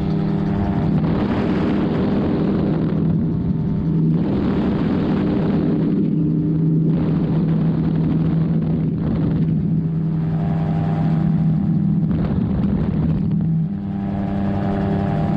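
Magni M16 gyroplane in cruise flight: the engine and pusher propeller drone steadily, with wind rushing over the open cockpit that swells and fades every couple of seconds.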